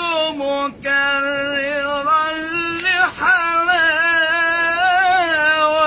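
A man singing an Arabic religious poem unaccompanied in an ornamented style, drawing the word "mukarraran" out over long, wavering held notes.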